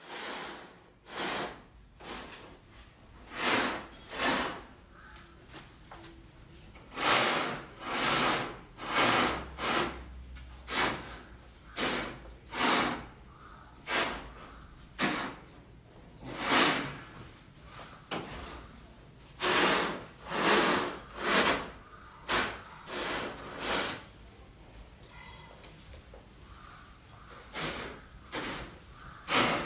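Canopy mosquito net curtains being pulled and slid along their overhead frame: about twenty short rasping swishes at irregular intervals, with a few quieter seconds about three quarters of the way through.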